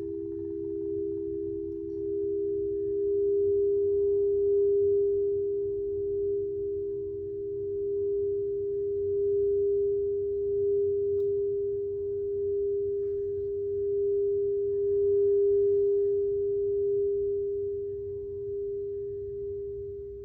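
A singing bowl sounding one long, steady ringing tone that swells and eases every few seconds, then begins to fade near the end.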